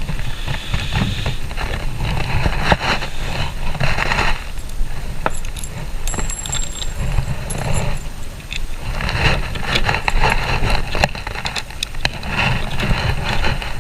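Clicks, knocks and scraping from hands-on work on a flat-pack pantry cabinet's panels and cam-lock fittings, over a steady low rumble.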